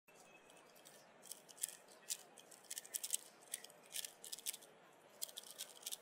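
Faint, rapid, irregular plastic clicking of a 3x3x3 speedcube's layers being turned fast in a speedsolve, in quick bursts starting about a second in.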